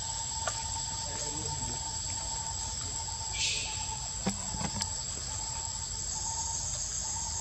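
Steady high-pitched drone of insects, with a short, higher burst about three and a half seconds in and a few light clicks a second later.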